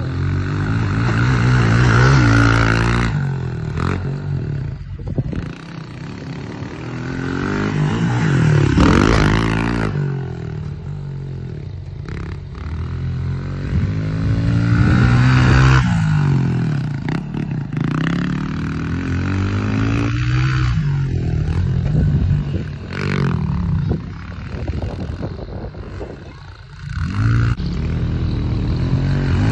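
110cc pit bike engine being ridden hard, revving up and down over and over. Its pitch climbs and drops again and again as the rider accelerates and backs off over the jumps and turns.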